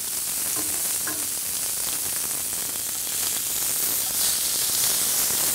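Beef tenderloin medallions searing in hot sunflower oil in a frying pan, a steady high sizzle. This is the browning stage on high heat, meant to caramelise the outside of the meat.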